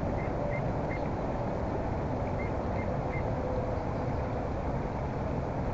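Steady rushing of river current, with a few faint, short high chirps in the first few seconds.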